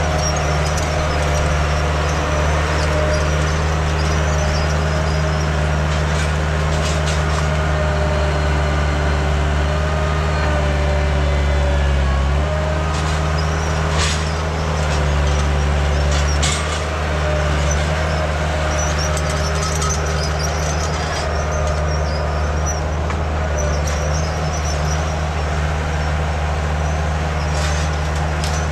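Engine of an earth-moving machine running steadily under load while pushing out trees and dirt, with a higher whine over it and a few sharp clanks. The engine note shifts about halfway through.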